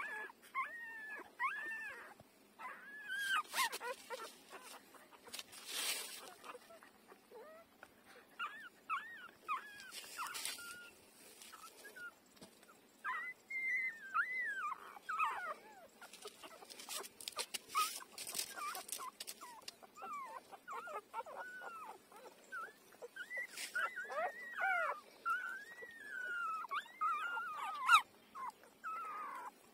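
Five-day-old puppies squeaking and whimpering while they nurse: many short, high cries that slide up and down in pitch, with brief scratchy noises now and then.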